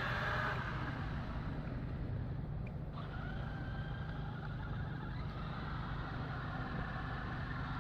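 Traxxas X-Maxx RC monster truck's electric motor whining faintly as it drives, over a steady background rumble.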